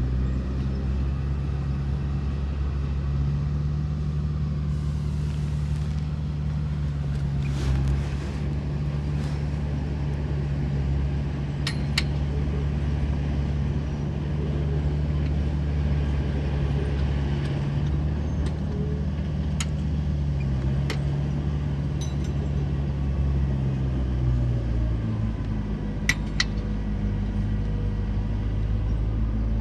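Diesel engine of heavy earthmoving machinery running steadily under load, its pitch shifting slightly near the start and again near the end. A few sharp clanks are scattered through, two close together near the end.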